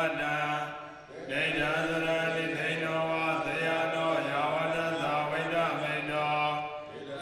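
Buddhist monks chanting in steady, drawn-out male voices, with a short break for breath about a second in and another near the end.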